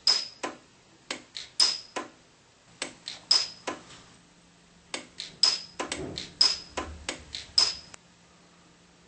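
Pulse arc micro-welder firing on fine filament wire: a run of sharp snaps in clusters of three or four, the loudest with a brief high ring, stopping about eight seconds in.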